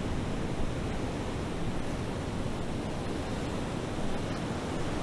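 Steady, even rushing noise like sea and wind, with no tone, rhythm or distinct events.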